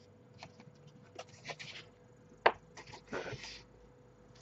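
Paper rustling and soft clicks as the pages of a large paperback drawing book are handled, with one sharper tick about halfway through.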